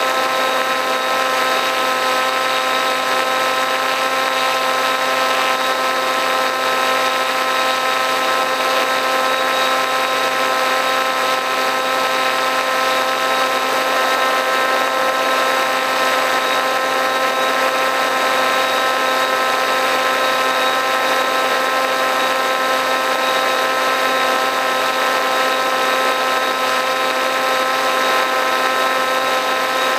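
A radio-controlled model plane's motor and propeller, heard close up from a camera mounted on the plane, giving a steady whine at a constant pitch over a rushing hiss as it cruises at an unchanging throttle.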